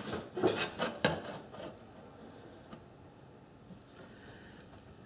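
A marking tool scratching short strokes along a steel rule on the surface of a metal cake pan. There are several quick strokes in the first second and a half, then only a few faint taps.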